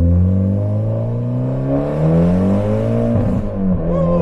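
Mitsubishi Evo X's turbocharged 2.0-litre four-cylinder accelerating hard through a straight-piped ETS exhaust. The pitch climbs for about three seconds, drops at a gear change, then climbs again.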